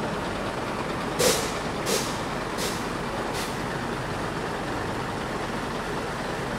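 Daewoo BH115 bus engine idling steadily, heard at the tailpipe. About a second in come four short hisses of compressed air, each fainter than the last.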